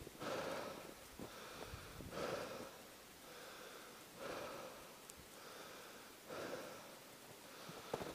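A person breathing hard while walking, with a strong breath about every two seconds and softer ones in between.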